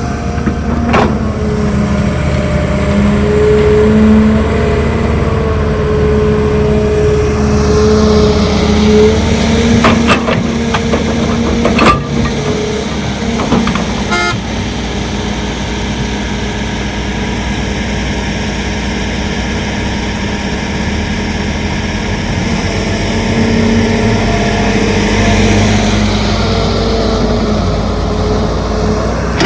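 Heavy excavator working: its diesel engine runs under load with a steady hydraulic whine that rises and falls, and a few sharp knocks stand out about a third and halfway through.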